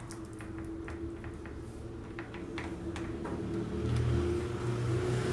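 Metal fork and spoon scraping and lightly clicking against a ceramic plate as potato salad is mixed, scattered soft taps over a steady low hum.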